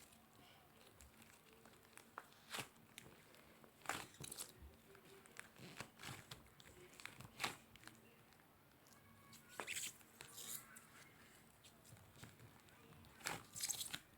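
Slime being worked by hand, giving faint, irregular crackles, pops and squishes, with a few louder pops near the end.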